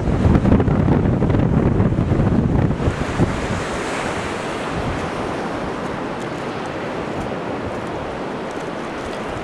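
Wind buffeting the microphone, heavy for about the first three seconds, over a steady hiss of surf breaking on a sandy beach.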